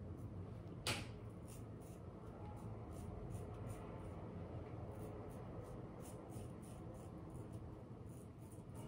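Straight razor scraping lather and stubble off the upper lip and chin in many short, faint strokes against the grain, with one sharper scrape about a second in.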